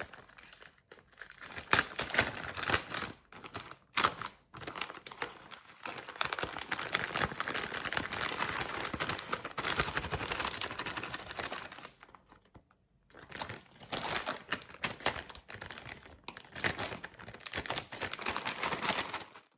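Food packaging and containers being handled and moved: crinkling plastic with quick clicks and knocks, and a brief pause about two-thirds of the way through.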